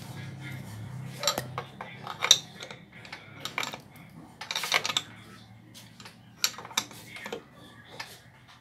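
Metal wrench clinking on the crankshaft nut of a Honda XRM125 engine as the crankshaft is turned by hand toward top dead center: irregular sharp metallic clicks, with a short flurry of them about halfway through.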